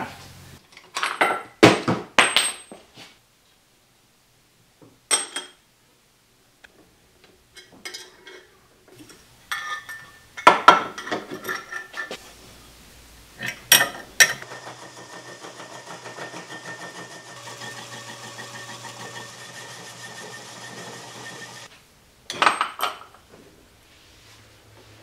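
Scattered metal clinks and knocks of steel clamps, bolts and a wrench on a lathe faceplate as a rough aluminum casting is clamped in. In the middle a steady machine hum runs for about seven seconds, then stops.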